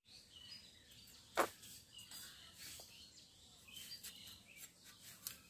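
Quiet knife work cutting cluster figs (dumur), with one sharp tap of the blade about a second and a half in and faint small ticks after.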